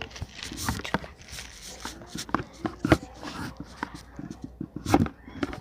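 Handling noise of the camera being adjusted: irregular clicks and knocks with soft rustling, loudest about three seconds in and again near five seconds.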